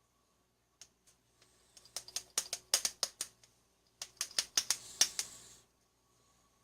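Small hard parts clicking and rattling as they are handled, in two flurries of rapid clicks, the first about two seconds in and the second about four seconds in.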